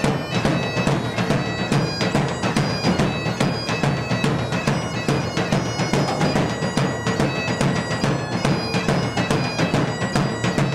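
Background music: bagpipes playing a tune over a held drone, with a steady drum beat.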